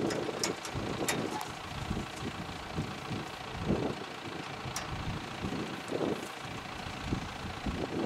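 New Holland tractor engine running steadily as it pulls a twin-rotor hay rake, with uneven low surges and a few sharp ticks.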